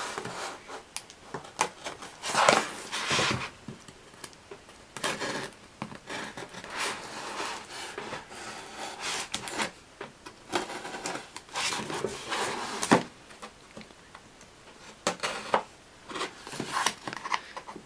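A Benchmade Mini Griptilian folding knife slitting and scraping at a cardboard shipping box, with the box rubbing and rustling as it is handled. The cuts and scrapes come irregularly, the loudest a few seconds in.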